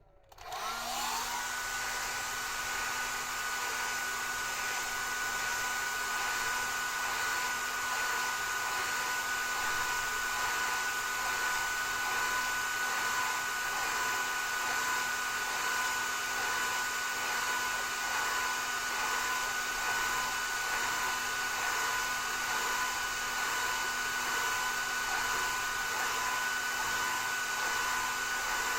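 Hand-held hair dryer switched on, its motor spinning up with a rising whine in the first second, then running at a steady whir with a few constant whining tones over the rush of air.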